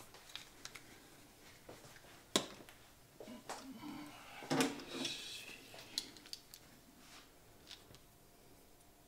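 Small clicks, knocks and rattles of plastic cassette shell parts and tools being handled on a tabletop, with a sharp knock about two and a half seconds in and a cluster of rattly clicks around the middle.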